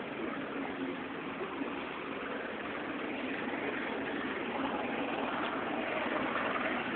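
Steady engine and road noise of a vehicle, heard from inside it.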